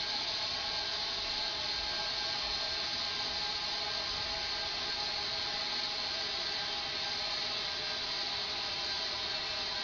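Compressed air from a tank at about 105 psi hissing steadily through an opened sprinkler valve, set off by the alarm clock, with a few faint steady tones in the hiss.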